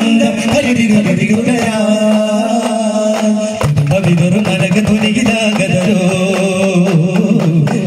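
Group daf muttu performance: several daf frame drums struck together in a steady rhythm, with a voice singing over them. The drumming grows fuller and heavier about three and a half seconds in.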